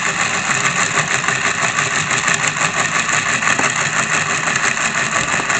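Peter's Spares X03 replacement motor driving a Tri-ang 0-6-0 model locomotive chassis through its worm gear, running slowly with a steady whir. The owner suspects the worm gear mesh is slightly off and may need moving to stop it.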